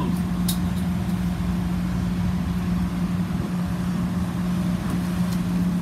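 CTA 2600-series rapid transit car running at a steady speed, heard from inside the car: a steady rumble with a constant low hum.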